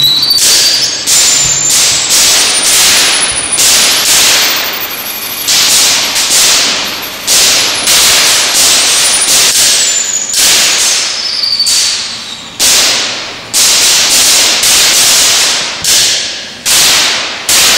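Violin played with hard, scratchy bow strokes, one every second or so, each starting sharply and fading. A thin high tone slides upward near the start.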